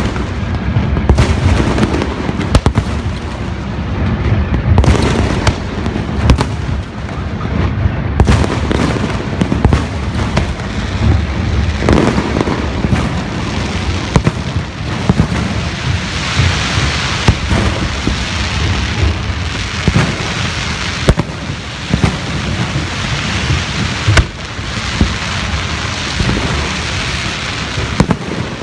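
Fireworks display: a rapid, continuous barrage of booming shell bursts and sharp bangs over steady crackling, with an especially dense crackle about halfway through.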